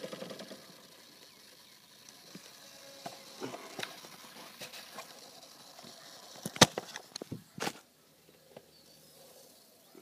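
Phone handling noise: scattered soft rubs and small clicks, with two sharp knocks about six and a half and seven and a half seconds in.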